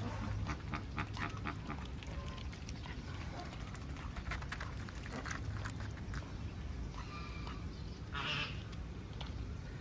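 Domestic ducks quacking: a quick run of short calls in the first couple of seconds, scattered calls after, and one longer call about eight seconds in, over a steady low rumble.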